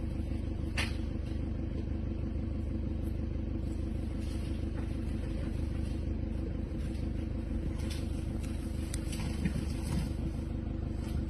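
Steady low hum of a car engine idling, heard from inside the cabin, with a sharp click about a second in and a few faint knocks near the end.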